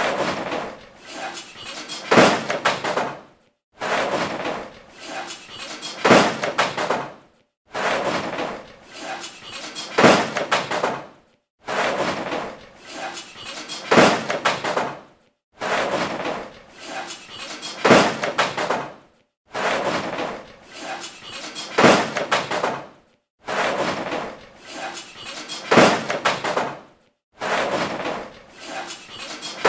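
Loud garbage clattering and banging, with a few sharp knocks in each burst. A clip of about four seconds repeats over and over, with brief silent gaps between.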